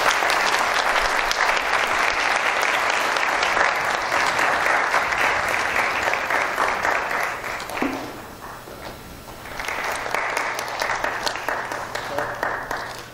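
Audience applauding, dying down about eight seconds in and picking up again a second or so later.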